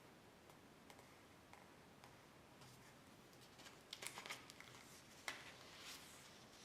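Near silence in a small room, broken by a few faint clicks and rustles about four to five seconds in.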